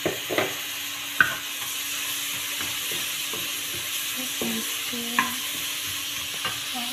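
Chopped onion sizzling in hot oil in a wok, stirred with a wooden spatula that knocks against the pan a few times, the sharpest knock about a second in.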